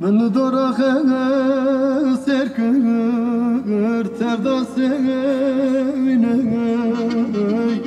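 Music: a singer holds a long, ornamented melody with wavering notes that runs without a break until just before the end.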